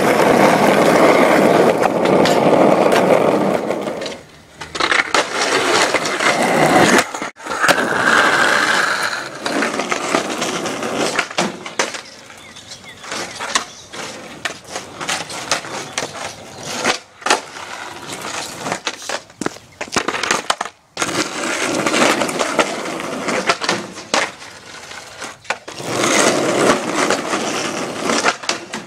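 Skateboard wheels rolling over a rough, cracked driveway, the rolling loudest in the first few seconds, with sharp clacks and slaps of the board on the ground throughout.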